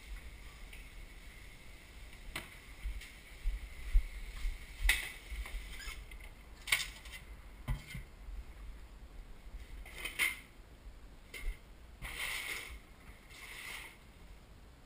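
Household objects being handled and moved: scattered knocks and clicks and a few short rustles, over a constant low rumble.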